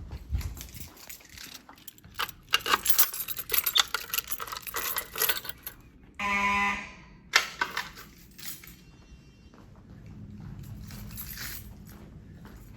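Metallic jangling and clicking, then about halfway through a single short blast of under a second from a fire alarm horn, as a device sounds briefly during a walk test.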